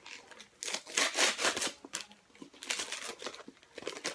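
Gift wrapping crinkling and rustling as a present is opened by hand, in two bursts of about a second each.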